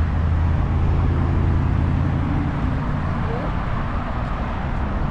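Street ambience: road traffic with a steady low engine hum, and people talking indistinctly.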